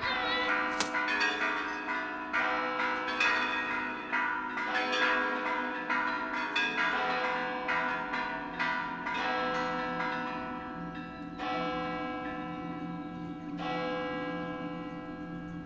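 Church bells ringing, many strokes overlapping at first, then slowing to single strokes a second or two apart, each left to ring on. A low steady tone sits underneath in the second half.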